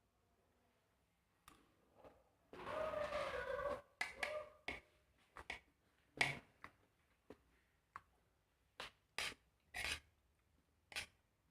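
Close-up eating sounds of someone chewing stir-fried swamp cabbage and rice: irregular crisp crunches and mouth smacks. About three seconds in comes a longer noisy sound lasting just over a second, with a squeaky pitched edge.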